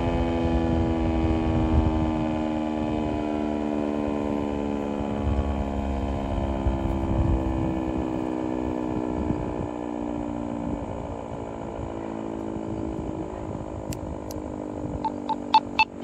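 ASC T-128 rotating outdoor warning siren winding down at the end of a test: its wail slides slowly and steadily lower in pitch and eases off a little. A quick run of short clicks starts near the end.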